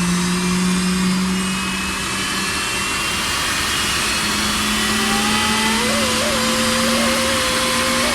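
Vacuum cleaner motor running with a steady rush of air. A whine climbs and wavers in pitch from about halfway through.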